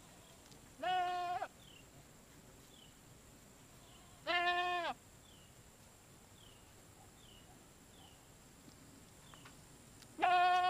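Goats bleating: three separate loud bleats, each under a second long, spaced a few seconds apart, the last near the end.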